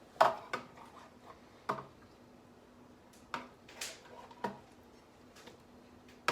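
Kitchen handling noise: a roasting pan and utensils knocking and clinking, about seven separate knocks spread over a few seconds, with a faint steady hum underneath.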